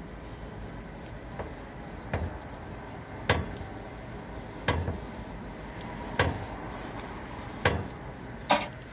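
Scissor jack being cranked to raise a car: a sharp metallic knock about every one and a half seconds as the handle turns.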